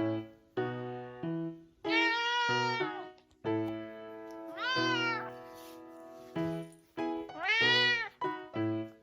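A pet cat meowing three times, each meow drawn out and arching up then down in pitch, over background piano music.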